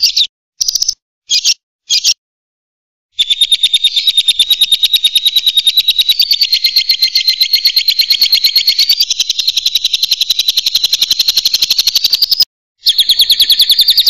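Lovebird giving a few short, sharp calls, then after a pause a long, rapid chattering trill of about a dozen notes a second lasting around nine seconds, the long 'ngekek' chatter; it breaks off briefly near the end and starts again.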